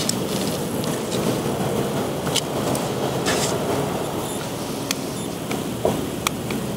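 Steady outdoor background noise, such as distant traffic or air moving over the microphone, with a few faint clicks scattered through it.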